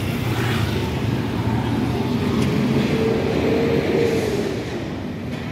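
Street traffic: a motor vehicle's engine rumbles past close by, swelling over the first few seconds and fading near the end.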